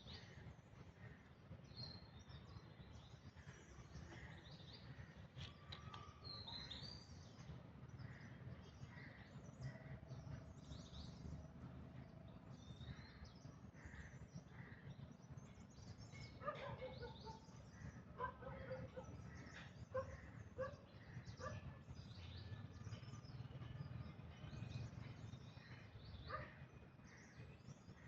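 Faint outdoor ambience: scattered short, high chirping calls over a low steady rumble, with a denser run of sharper calls and clicks a little past halfway.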